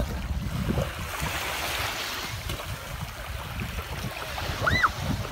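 Small lake waves lapping and breaking at the shoreline, with wind rumbling on the microphone. A short high call is heard near the end.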